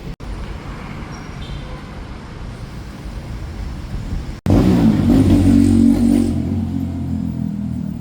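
Road traffic rumbling steadily, then, after a brief dropout about halfway through, a much louder motor vehicle close by with a steady engine hum.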